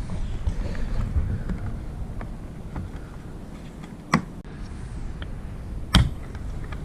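Wind buffeting the microphone as a low rumble, with two sharp knocks about two seconds apart in the second half.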